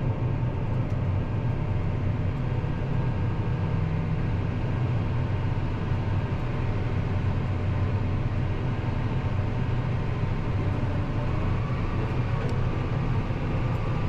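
Farm tractor's diesel engine running steadily, heard from inside the closed cab as an even low drone.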